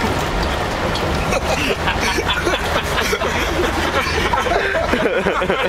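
Passengers' murmured chatter over the steady rumble of a moving coach bus.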